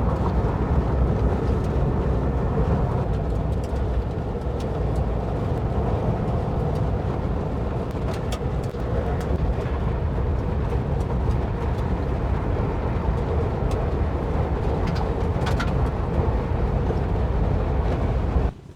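1958 Volkswagen Bus with its air-cooled flat-four engine driving steadily over a rough dirt trail, heavy low rumble with scattered clicks and rattles. The sound cuts off suddenly near the end.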